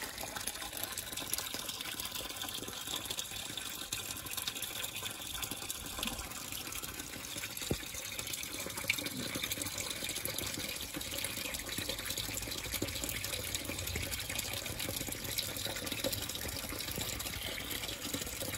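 Steady sound of running water in a garden turtle pond, with one faint click partway through.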